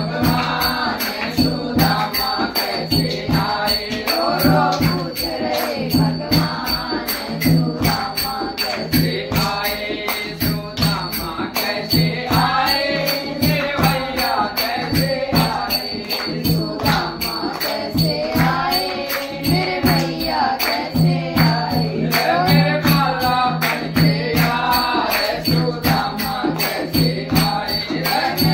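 A group of women singing a Hindi devotional bhajan in unison, with hand claps and a dholak drum keeping a steady beat.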